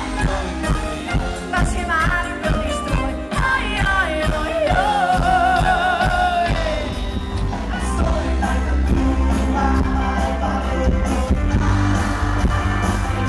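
Live pop-rock band music with a steady beat and bass, and a woman singing the lead with vibrato into a microphone. About two-thirds of the way through the music changes, the bass growing heavier.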